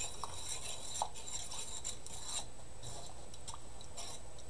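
A fork stirring thick sausage gravy in a nonstick skillet, an irregular run of rasping, scraping strokes against the pan.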